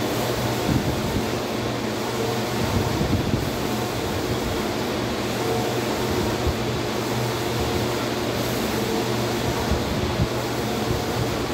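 Large-format flex banner printer running as it prints: a steady whir from its row of fans with a low hum underneath, while the print-head carriage shuttles back and forth.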